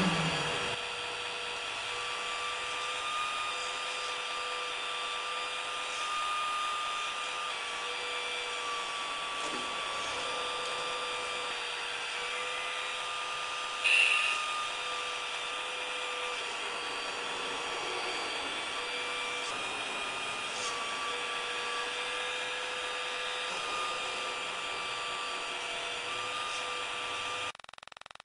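Small electric motors and gearboxes of a radio-controlled 1/16 Bruder Caterpillar excavator model whining steadily, the pitch wavering slightly as the machine works. A sharp click comes about halfway through, and the whine cuts off suddenly near the end.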